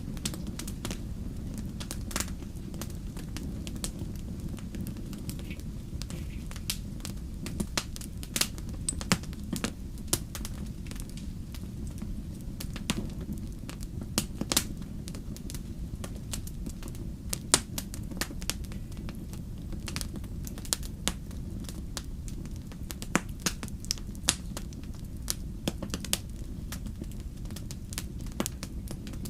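Wood fire burning in a fireplace, crackling with irregular sharp pops and snaps over a low, steady rumble.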